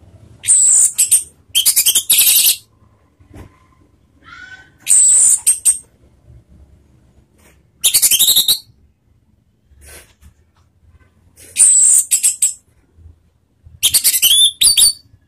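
Orange-headed thrush singing: about seven short, loud, high song phrases, each under a second long, with quiet gaps of one to three seconds between them. A fainter, lower note comes about four and a half seconds in.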